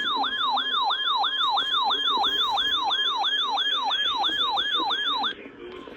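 Emergency alert tone for a tornado warning: a siren-like falling yelp, repeating about three times a second over a steady high tone. It cuts off about five seconds in.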